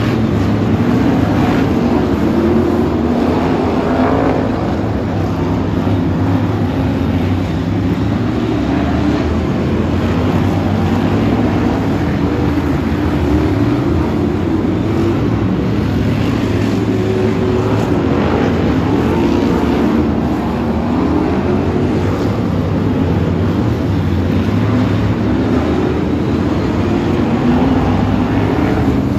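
A field of BriSCA F1 stock cars racing, their V8 engines running hard together in a continuous loud drone, the pitches of different cars rising and falling as they accelerate and lift off.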